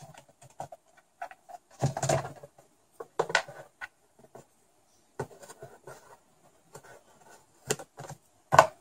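Handling noises of light taps and scrapes as a small ring is held on a box and a pencil traces around it to mark a hole, with a few louder knocks, the loudest near the end.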